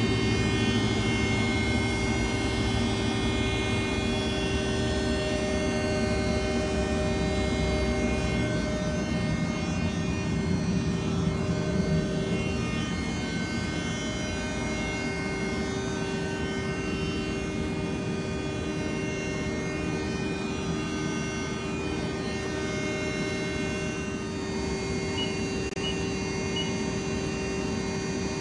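Powered-up 2021 Haas ST10Y CNC lathe running with a steady mechanical hum of several held tones, a little quieter after about halfway. Near the end, a few short high beeps from the control keypad as keys are pressed.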